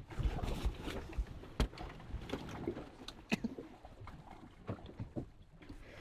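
Small fishing boat on open water: waves lapping at the hull with a low rumble, broken by scattered sharp knocks and thumps, the clearest about a second and a half in and again past three seconds.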